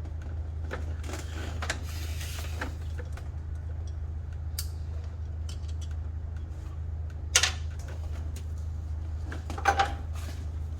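Scattered clicks and light metal clinks of hand tools working on engine parts, over a steady low hum, with two sharper knocks about seven and ten seconds in.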